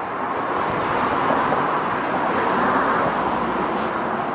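Road traffic noise from a vehicle passing, swelling to a peak over the first couple of seconds and easing off near the end.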